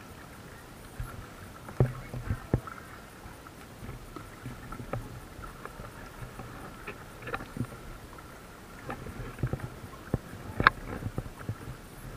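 Kayak being paddled: double-bladed paddle blades dipping and splashing, with scattered irregular knocks and drips, the sharpest knock near the end.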